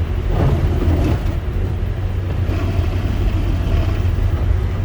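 Car driving through snow on the road, heard from inside the cabin: a steady low rumble with the rushing noise of the tyres hitting snow, loudest about half a second to a second in.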